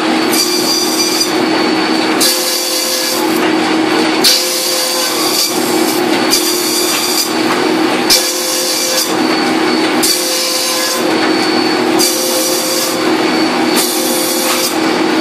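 Bamboo satay-skewer making machine running: a steady motor hum with a harsher, high-pitched grinding burst that comes back about every two seconds as each piece of bamboo is worked.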